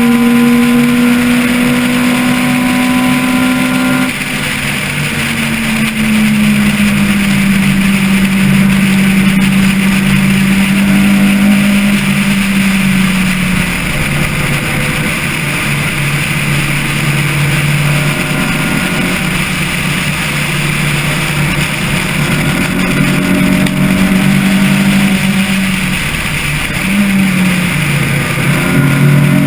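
Car engine heard from on board while driving on a circuit. The engine note climbs slowly, cuts off sharply about four seconds in, then holds and gradually falls, and dips and rises again near the end, over a steady hiss.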